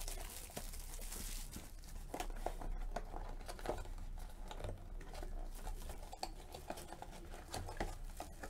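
Clear plastic shrink-wrap crinkling and tearing as it is pulled off a sealed trading-card box by hand, with a steady run of small irregular crackles.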